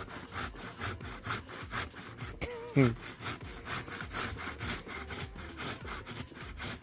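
Hand saw cutting through wood in steady back-and-forth strokes, about two and a half a second. Midway, a short, loud vocal sound drops in pitch.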